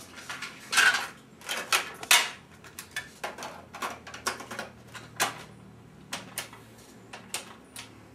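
Irregular clicks, knocks and light rattles of small hard objects being handled and set down on a table, a few louder knocks in the first two seconds and smaller clicks after.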